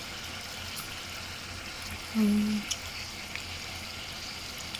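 Self-heating hot pot simmering with a steady hiss, with a few faint clicks of chopsticks in the tray. About two seconds in, a short low hum stands out for half a second.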